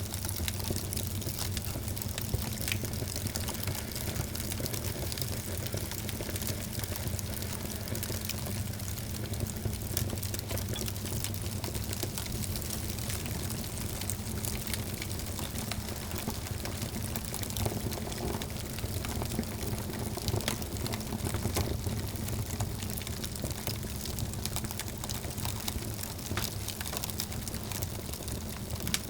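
Wood fire burning in a fireplace: dense, continuous small crackles and pops over a steady low rumble.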